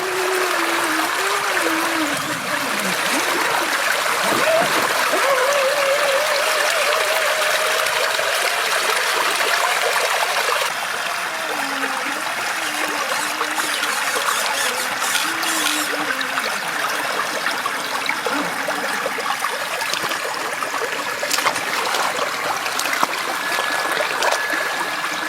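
River water running and trickling steadily, with a faint wavering tone coming and going over it.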